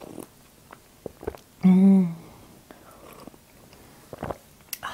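A woman sipping tea from a mug, with faint short sips and mouth clicks, and a short hummed "mmm" about a second and a half in, the loudest sound. A few light clicks follow near the end.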